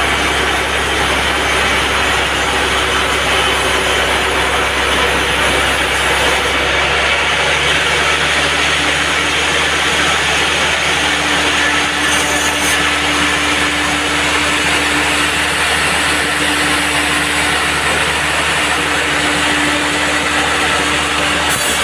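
Band sawmill running: a loud, continuous machine noise with an engine-like drone. The low hum shifts about a third of the way in, and a steady tone comes in near the middle.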